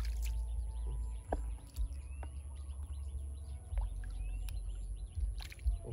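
Birds chirping in many short, quick calls over a steady low rumble, with a few sharp clicks.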